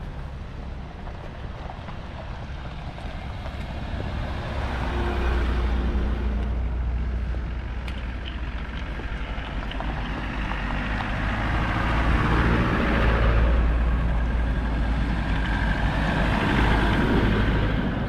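Several 4x4 off-road vehicles driving slowly up a snow-covered track and passing close by. Their engines run low and steady and get louder as each one goes past, about five seconds in and again in the second half.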